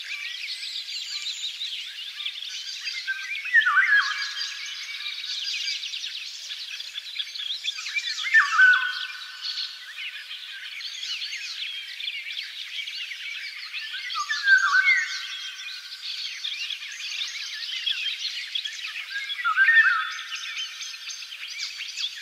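Many birds chirping and singing together in a dense chorus. A louder call rises out of it about every five seconds, each a short phrase that falls in pitch.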